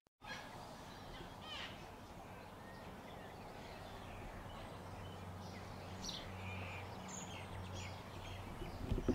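Faint bird chirps, scattered and short, over a low steady hum.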